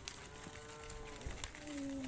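Cattle mooing: one long, steady call, then a second, lower moo that falls in pitch a little past the middle.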